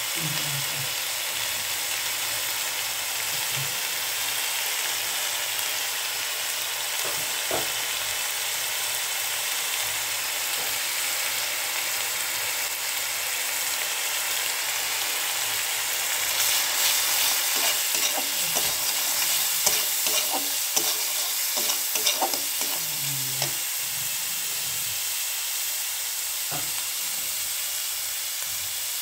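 Food frying in hot oil in a pan with a steady sizzle, stirred with a spatula. Past the middle the sizzle grows louder for several seconds, with scattered scraping clicks of the spatula.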